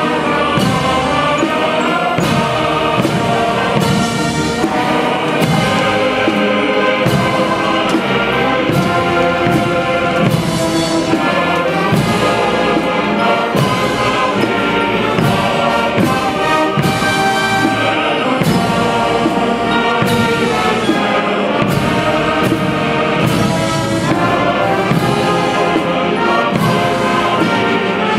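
Massed military brass bands playing together, full and sustained, with a steady drum beat.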